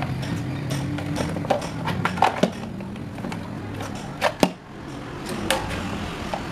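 Hard plastic and metal parts of an electric fan motor knocking and clicking as the plastic housing is pulled off the stator and the pieces are set down on the bench, with a sharp double knock about four and a half seconds in. A steady low hum runs underneath.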